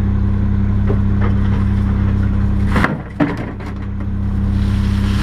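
Rear-loading garbage truck running with a steady low hum while woody brush in its hopper cracks and splinters under the packer. A cluster of sharp cracks comes a little under three seconds in, and the truck's low hum drops off after it.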